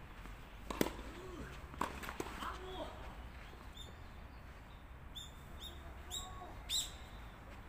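Tennis balls struck by racquets in a volley rally: a few sharp pocks, about a second in and twice around two seconds. From about four seconds on, a bird chirps repeatedly in short, high calls.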